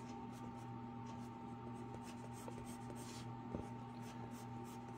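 Wooden pencil scratching on paper in short strokes, tracing lines and a circle, over a steady low hum. A soft thump about three and a half seconds in.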